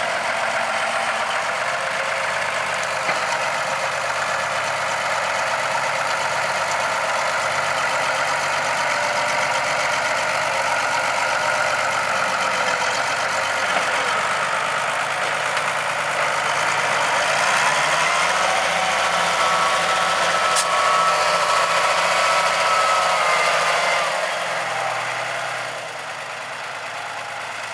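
Front-loader tractor's diesel engine running steadily while it pushes chopped corn on a silage pile. About 17 seconds in it gets louder and deeper for around seven seconds, then drops back.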